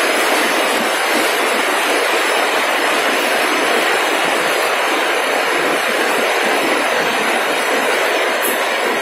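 A steady, even rushing noise that holds at one level, with no tone, rhythm or separate knocks in it.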